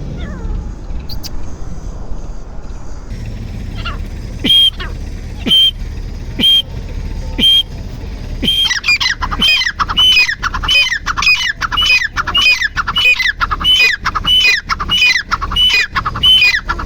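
Grey francolin (teetar) calling: from about four seconds in, a sharp high call repeated roughly once a second, then about halfway through a fast run of descending calls, several a second, overlapping one another.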